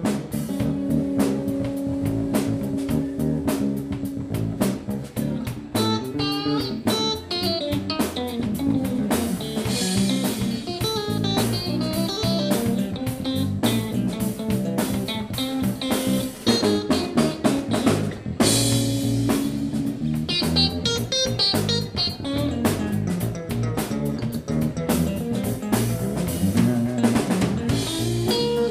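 Live funk instrumental band: electric guitar plays fast lead runs over electric bass and a drum kit keeping a steady groove.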